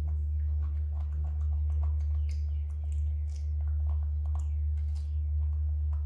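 Scattered small clicks and taps as a young macaque handles and mouths a hard plastic toy banana, over a steady low hum.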